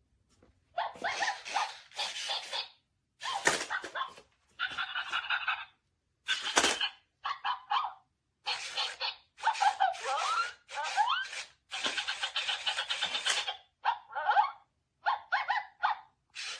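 Robot dog toy playing recorded dog barks and yips from its small speaker, in a string of short bursts with brief silences between.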